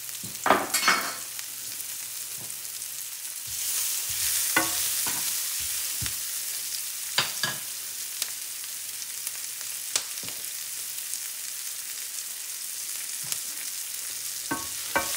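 Diced onions, yellow peppers and garlic sizzling in a nonstick skillet, with a steady hiss that swells a little about four seconds in. A few sharp clicks and scrapes of a utensil against the pan come as the vegetables are stirred.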